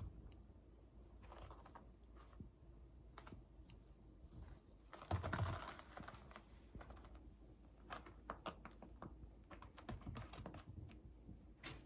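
Faint, scattered light clicks and taps from a kitten playing loose in a room, with a louder scuffle about five seconds in.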